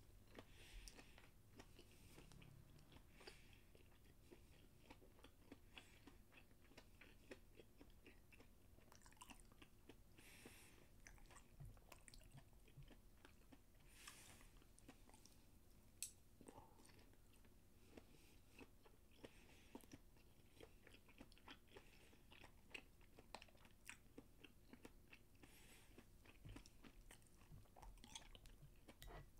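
Faint chewing of a person eating, with many small clicks.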